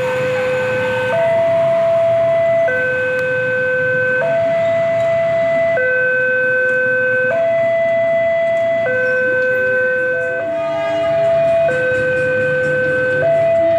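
Newly installed railway level-crossing warning alarm sounding, alternating a higher and a lower tone, each held about a second and a half. About ten and a half seconds in, a short cluster of other tones and fast ticking briefly joins it.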